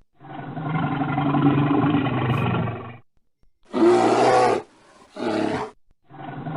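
Bear roar sound effect: a long growling roar lasting about three seconds, followed by two shorter, brighter calls about four and five seconds in.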